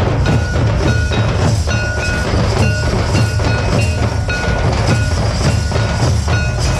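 A band of large nagara kettle drums and a barrel drum beaten with sticks, playing a fast, steady rhythm, with a high tone sounding in short repeated notes over the drumming.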